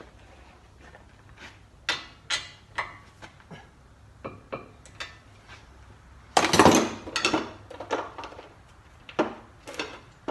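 Metal tools and parts clinking and knocking during hand work on a car's wheel hub, with scattered sharp clicks and a louder clatter lasting about a second past the middle.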